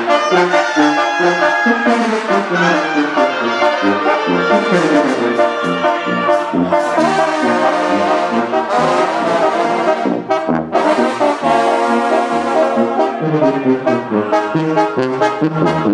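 Brass band music, with trumpets and trombones playing.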